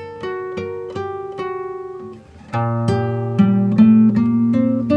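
Background music on acoustic guitar: single picked notes, then after a brief pause about halfway through, fuller, louder strummed chords.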